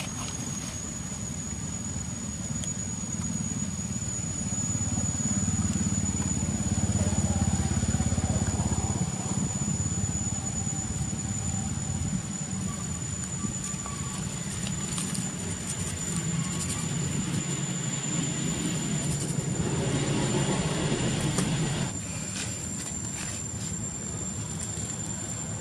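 Low rumble of a motor vehicle engine that swells and fades, then comes back and cuts off sharply near the end, over a steady high-pitched whine.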